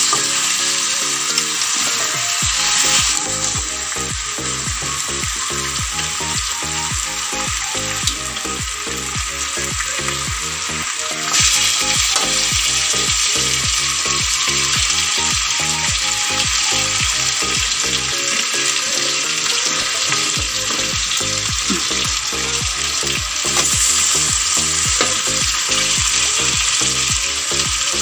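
Chicken pieces sizzling in hot oil, spice paste and sweet soy sauce in a wok while being turned with a fork. The steady sizzle gets a little louder about eleven seconds in.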